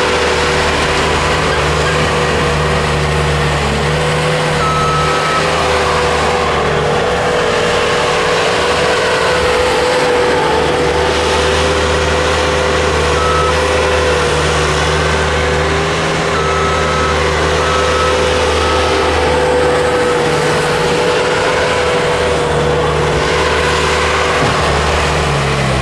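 Heavy machinery running steadily: the Diamond Reo dump truck with its bed raised to tip a load of dirt, and a Bobcat S220 skid-steer loader working beside it. A steady whine sits under the engine noise, with short beeps now and then.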